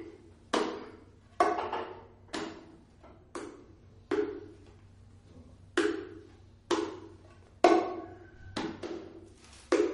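Bongo struck by hand in slow, single strokes, about one a second with a short pause midway. Several strokes ring out as open tones, and one near the end is the loudest.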